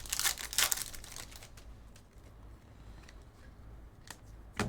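Crinkling of a foil card-pack wrapper being handled and torn, dense in the first second, then a quieter stretch with two light clicks near the end.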